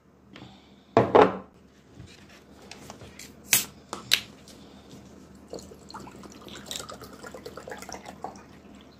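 A plastic water bottle being handled, with a few sharp knocks and crackles, followed by a run of faint ticking and dripping water.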